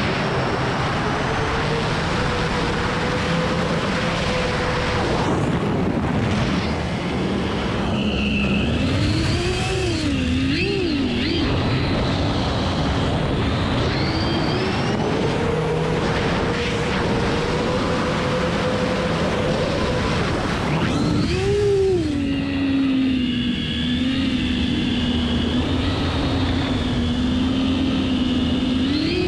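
12S X-Class FPV quadcopter's brushless motors and propellers whining over a rush of wind, flying flat out. The pitch holds high and steady, dips and wavers twice as the throttle comes and goes, then settles lower and steady for the last several seconds.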